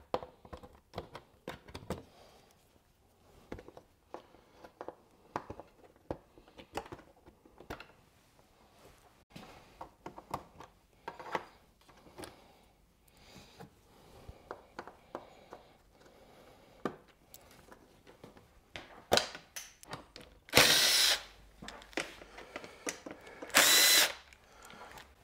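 Small clicks and taps of plastic twist-lock fasteners and a motorcycle fairing being worked loose, then two short runs of a power driver spinning a bit, each about a second long, near the end; these are the loudest sounds.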